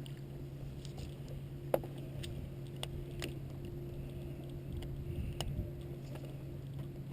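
Steady hum of a boat's motor under way while power drifting, with a few sharp clicks and taps from fishing gear on the boat, the loudest a little under two seconds in.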